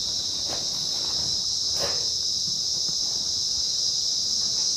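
Insects shrilling in a steady, high-pitched chorus, with a couple of faint knocks.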